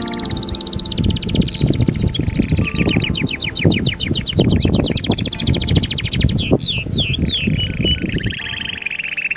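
Songbirds singing: fast, high-pitched trills of rapidly repeated notes, several overlapping, with a few quick sweeping calls a little past the middle. An irregular low rumbling noise runs underneath and stops near the end.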